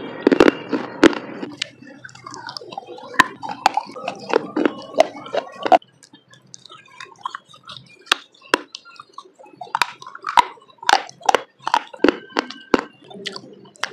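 Close-miked biting and chewing of pieces of baked clay pot: a run of sharp, irregular crunches that come in clusters, with a quieter stretch a little past the middle.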